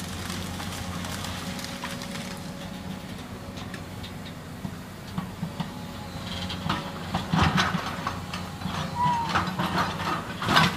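Steady diesel engine drone from a tracked excavator. From about six seconds in come a series of sharp cracks and clatters as it breaks up and shifts house demolition debris of splintered wood.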